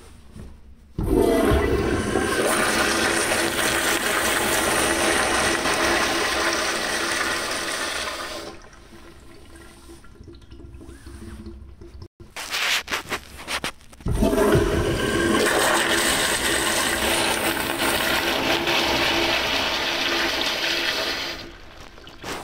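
American Standard Afwall toilet flushed twice by its flushometer valve. Each flush starts suddenly with a loud rush of water that lasts about seven seconds, the second beginning about halfway through, with a few short knocks just before it.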